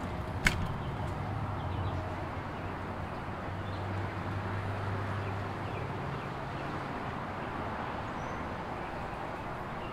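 A steady low mechanical hum over a wash of background noise, swelling for a couple of seconds in the middle, with a single sharp click about half a second in.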